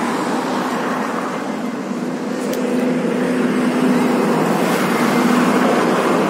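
Steady vehicle road noise: an even rushing sound with a faint low engine hum underneath.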